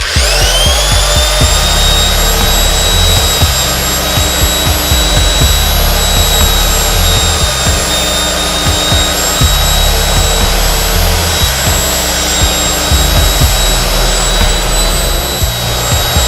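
A high-speed electric power-tool motor spins up quickly and then runs with a steady high whine.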